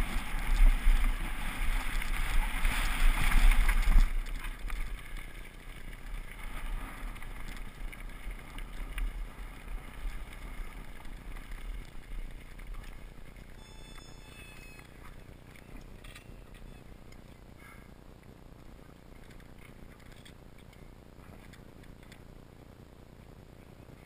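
Wind buffeting a mountain bike's action-camera microphone, with the tyres rumbling over a loose gravel trail: loud for the first few seconds, then falling away to a faint rustle as the bike slows and stops.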